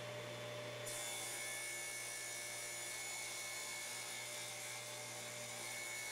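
Table saw ripping a glued-up quartersawn white oak panel to width: a steady motor hum and blade whine, with a higher hiss joining about a second in.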